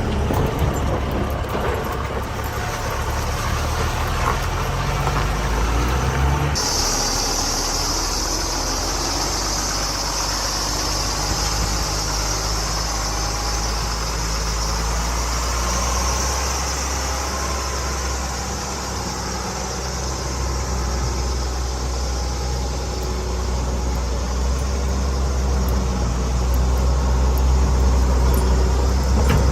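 Steady, low truck-like engine sound idling. About six and a half seconds in, a high hiss joins it suddenly and continues.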